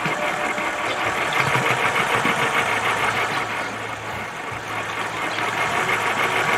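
A pump boat's electric propulsion motor and drive running with a fast, even mechanical clatter. It grows louder about a second in, eases off around four seconds and picks up again.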